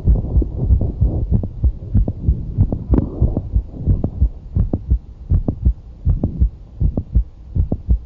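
Heart sounds heard through a stethoscope: regular beats, each with a mid-systolic click between the first and second heart sounds, the typical sign of mitral valve prolapse.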